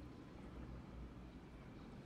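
Faint, steady low rumble of outdoor background noise, with no distinct event standing out.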